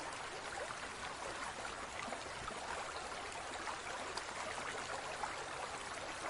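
Steady trickling, rippling water with faint little droplet sounds scattered through it.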